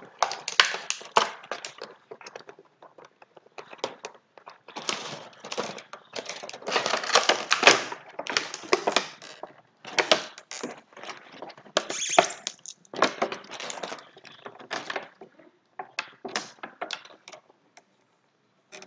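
Tape being peeled and pulled off an action figure's packaging, with the plastic and cardboard crackling and rustling in irregular spells broken by short pauses.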